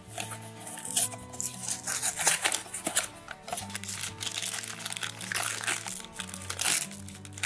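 Clear plastic blind-box bag crinkling and crackling as it is handled and pulled open, over light background music.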